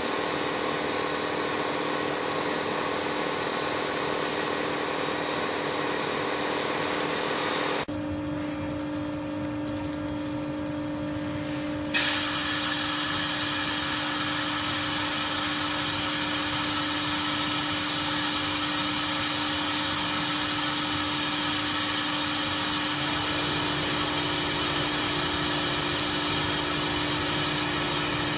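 Steady industrial machine noise from an automatic light-pole welding machine running, a constant hum under an even hiss. About eight seconds in, the high hiss drops away, and it returns with a click about four seconds later.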